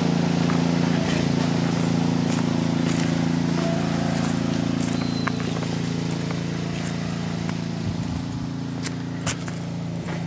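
A small engine running steadily at a constant speed, slowly growing fainter, with scattered light clicks and a short high chirp about halfway through.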